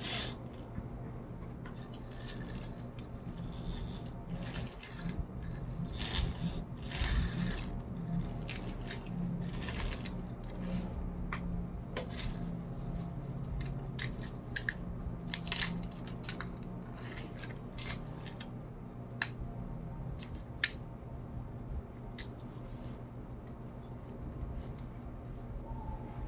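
Toy truck being handled and played with: scattered short clicks and brief scrapes, over a steady low hum.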